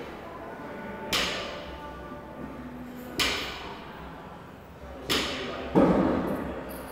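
Gym equipment thudding down about every two seconds, each hit followed by a short ringing echo in the large hall, with one heavier, duller thud near the end.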